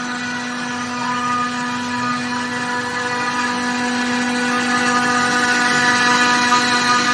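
Air compressor running steadily: an even machine hum with a string of overtones over a hiss, growing a little louder partway through.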